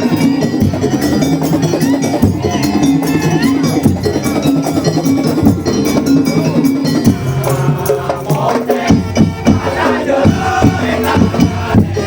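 Daul Madura band music: a Madurese percussion ensemble playing a steady pitched melody over dense drum and wood-block beats, with crowd noise mixed in. The percussion hits grow stronger about seven seconds in.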